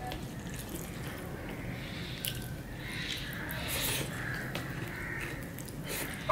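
Eating by hand: fingers gathering fried rice on a steel plate and wet chewing and mouth sounds, with scattered small clicks and one sharp click near the end.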